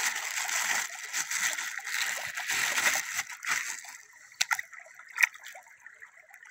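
Hands sloshing and splashing a plastic bag of raw chicken pieces in shallow flowing river water. About four seconds in the sloshing dies down, leaving a few short sharp sounds.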